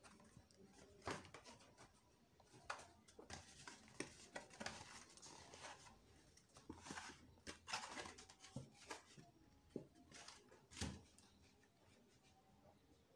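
Faint, irregular rustles, scrapes and light knocks of cardboard boxes being handled and folded on a wooden table.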